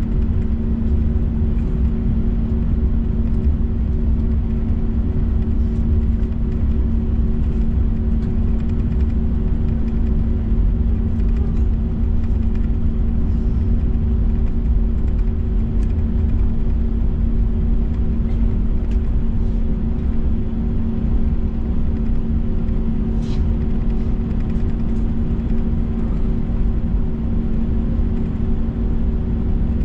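Airbus A321 cabin noise: the jet engines and airflow make a steady, loud low rumble, with a constant hum held under it and a few faint clicks.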